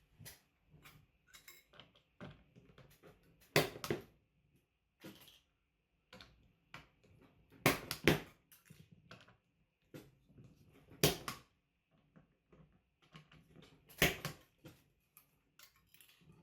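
Spring-loaded punch-down tool snapping as its cutting blade seats and trims network cable wires in the punch-down terminals: about six loud sharp snaps, some in quick pairs, among fainter clicks and handling ticks.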